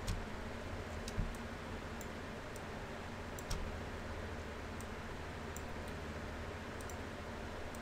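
Scattered light clicks of a computer mouse at irregular intervals as map stamps are placed, over a faint steady low hum.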